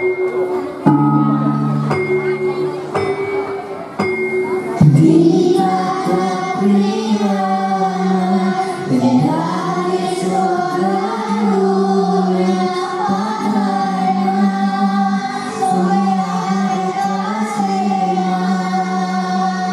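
Children singing together over instrumental accompaniment. The music opens with a few separate instrumental notes about a second apart, and the voices come in about five seconds in with long held notes.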